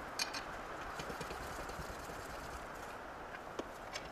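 A few light clicks and taps of cylinder-head studs being handled and threaded by hand into a Honda GX-series engine block. The sharpest click comes just after the start and two more come near the end, over a steady faint hiss.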